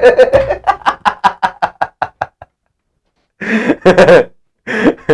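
A man laughing hard: a fast run of short laughs that trails off over about two seconds, then after a brief pause more bursts of laughter.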